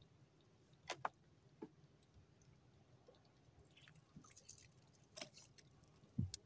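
Near silence broken by a few faint clicks and small knocks as a fishing handline and hook are handled at the side of a wooden boat, the loudest a low knock near the end.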